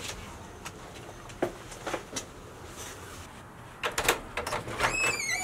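A house's front door: faint clicks, then a cluster of sharp clacks about four seconds in and a short squeak falling in pitch as the door is unlatched and swung open.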